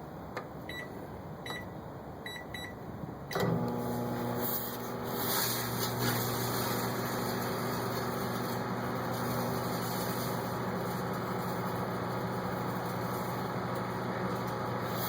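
Microwave oven keypad beeps several times, then the oven switches on about three seconds in with a loud steady hum, overlaid by a crackling hiss from the steel wool sparking inside it.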